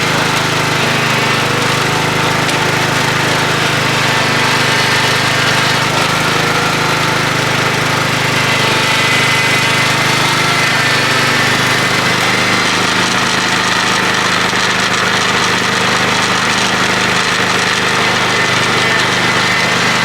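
Small petrol engine running steadily at a constant speed, its note shifting slightly about twelve seconds in.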